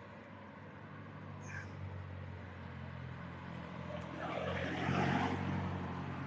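A road vehicle's engine hum and tyre noise growing louder as it passes, peaking about five seconds in and easing slightly after.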